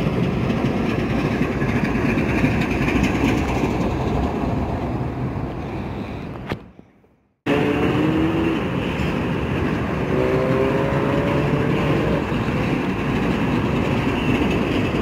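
Diesel freight locomotives passing close by, with steady engine and rail noise. The sound fades out about six and a half seconds in and breaks off briefly, then more passing locomotives come in, with two short spells of a steady multi-note tone.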